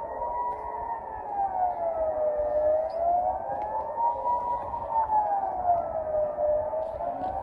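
Civil defence siren sounding the Swiss general alarm: a steady wailing tone that slowly rises and falls, one cycle about every three and a half to four seconds.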